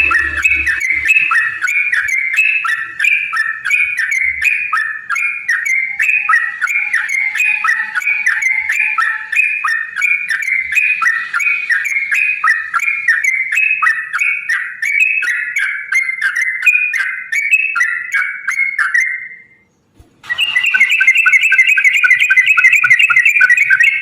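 Yellow-vented bulbul (trucukan) song: a long, fast rolling run of rapidly repeated bubbling notes. It stops abruptly about twenty seconds in and starts again at once.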